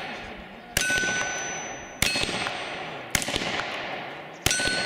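Revolver fired four times, roughly one shot every second or so, each shot joined by the clang of a hit steel plate target that rings on and slowly fades.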